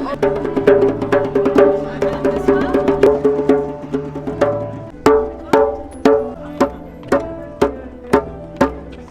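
Live music from an ensemble of musicians and percussionists: sustained pitched notes over quick percussion strikes, thinning about five seconds in to an even beat of about two strikes a second.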